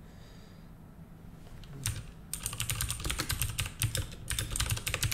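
Typing on a computer keyboard: a quick run of keystrokes that starts about two seconds in and keeps going to the end.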